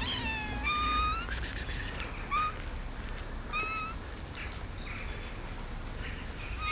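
Stray cats meowing: four or five short, high-pitched meows, some rising and some falling in pitch, with a brief rasping noise about a second and a half in.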